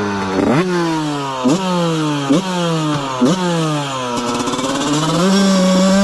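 Husqvarna SM/CR 125 two-stroke single-cylinder engine, fitted with a Keihin 36 carburettor, revving in four quick sharp blips about a second apart, its pitch sinking away after each one, then rising again and held steady at high revs from about five seconds in.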